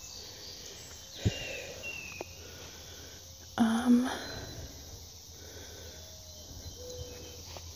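Quiet outdoor ambience with a few faint high chirps. A sharp click comes about a second in, and a short murmur of a voice comes about halfway through.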